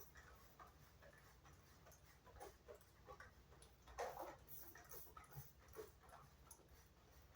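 Near silence with faint, scattered small clicks and knocks, one a little louder about four seconds in.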